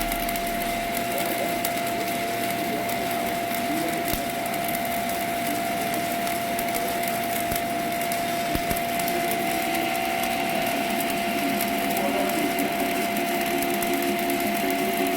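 TIG welding arc hissing steadily with a constant high hum, and a few faint ticks.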